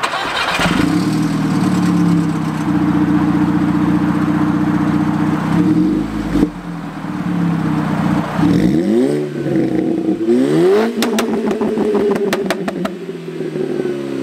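Straight-piped, decatted 2.0 TFSI turbocharged four-cylinder of a stage 2 remapped VW Golf Mk5 GTI starting up about half a second in and settling into a loud, steady idle. Later it is blipped a couple of times, each a quick rising rev, with a run of sharp crackles from the exhaust as the revs drop.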